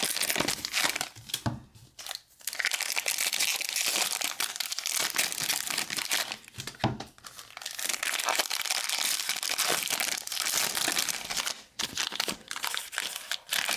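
Plastic trading-card pack wrappers being torn open and crinkled by hand: irregular high crackling and tearing that comes and goes with short pauses.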